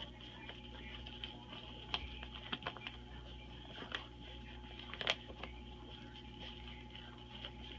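Scattered soft, irregular clicks and smacks of twelve-day-old Rhodesian Ridgeback puppies suckling at their mother, over a faint steady hum.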